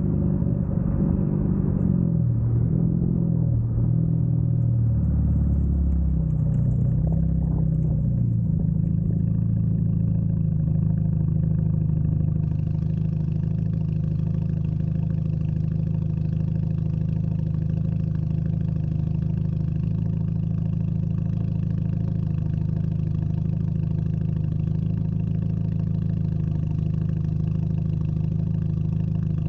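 Straight-piped Hyundai Genesis Coupe's exhaust while driving. For about the first eight seconds the engine note steps up and down in pitch, then it settles into a steady drone at a constant speed.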